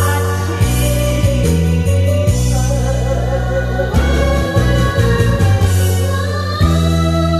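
A singer performing a Korean song over loud amplified backing music with a deep bass line that changes note every half second or so.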